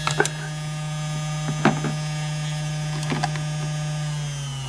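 A Singer 221 Featherweight's small 0.4-amp electric motor running at full speed, driving the hand wheel through a new V-belt, with a steady hum. The motor is raised as high as it will go so the belt tension does not drag its speed down. A few sharp clicks come from the motor mount being adjusted, and near the end the hum falls in pitch as the motor slows.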